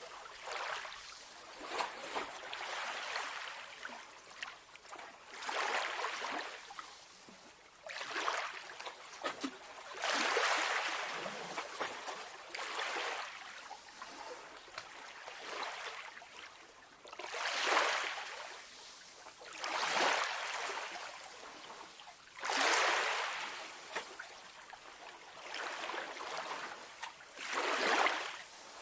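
Calm sea waves washing in gently, each wave a soft swell of hiss that rises and fades, about one every two to three seconds, with little low rumble.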